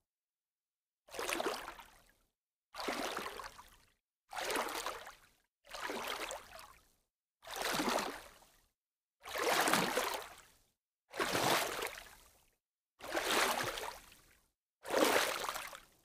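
Water splashing slowly, in separate splashes about every second and a half to two seconds, nine in all. Each starts sharply and dies away over about a second, with dead silence between.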